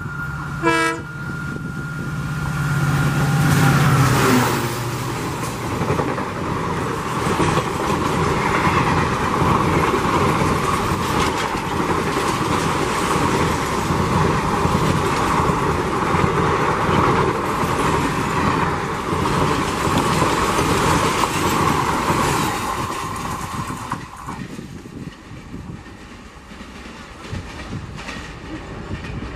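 WDP4 diesel-electric locomotive, with its EMD two-stroke V16 engine, passing at high speed. A low engine drone is heard for the first few seconds. Then the passenger coaches roll past with steady wheel-on-rail noise for about twenty seconds. It turns quieter near the end as the train draws away.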